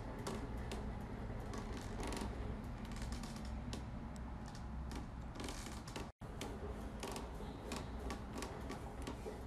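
Faint, irregular wet clicks and smacks from a sleeping bulldog puppy's mouth and tongue as a finger touches it, over a low steady hum. The sound cuts out for a moment about six seconds in.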